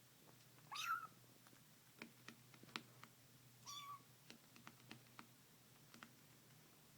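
Domestic cat making two short mewing sounds while eating, one about a second in and one around four seconds, with soft clicks from chewing in between.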